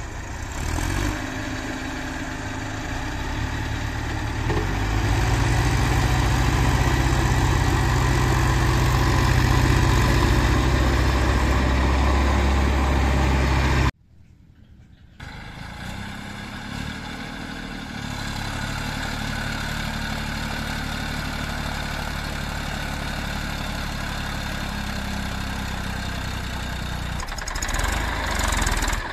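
Diesel engines of a JCB 3DX backhoe loader and a Massey Ferguson 241 tractor running close by, getting louder about five seconds in and holding there. After a brief break near the middle, the tractor's engine runs steadily as it hauls a loaded sand trolley through soft sand.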